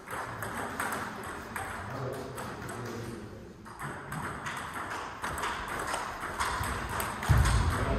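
Table tennis ball clicking off rackets and table in quick succession during play. A heavy low thump near the end is the loudest sound.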